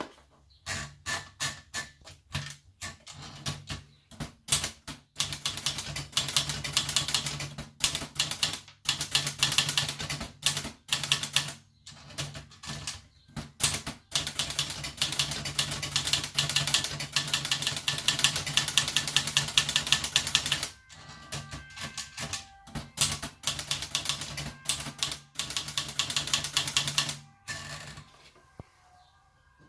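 Olivetti Dora manual portable typewriter being typed on: fast runs of sharp key strikes in bursts with short pauses, stopping near the end.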